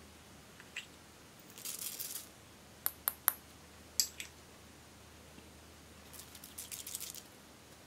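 Small plastic jar of glitter sequins being handled and shaken out over a bowl of foam beads and slime add-ins. A short rustle comes first, then several sharp plastic clicks, and near the end a quick patter of sequins falling.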